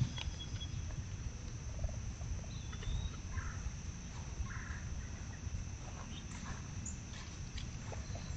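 A few short bird calls, fowl-like, over a steady low rumble.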